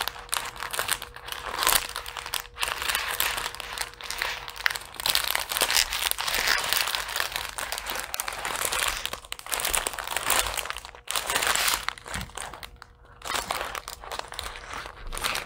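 Clear plastic packets of diamond-painting drills crinkling and rustling as hands sort through them, in uneven handfuls with short pauses.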